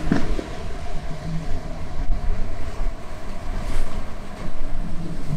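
Outboard motors of a center-console boat running steadily through rough water, under the rush of breaking waves and wind buffeting the microphone.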